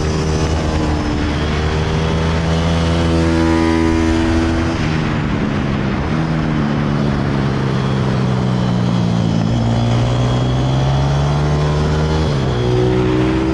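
Pit bike engine running hard at speed, heard from on board the bike, its pitch steady for stretches and changing abruptly about five seconds in and again near the end.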